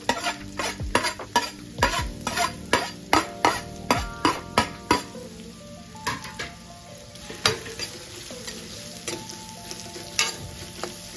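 Chopped onions sizzling in hot oil in an iron kadhai. For the first five seconds there is a quick run of sharp metallic clinks, about two or three a second, as they go in and are worked in the pan. After that come fewer clinks from the steel spoon stirring them.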